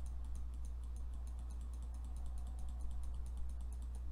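Rapid light clicking of a computer input device, several clicks a second, over a steady low electrical hum.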